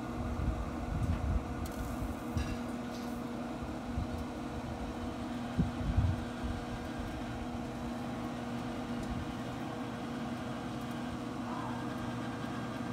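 Pit Boss pellet grill running, its fan giving a steady hum, with a few low bumps about a second in and again around six seconds in as skewers are turned on the grate.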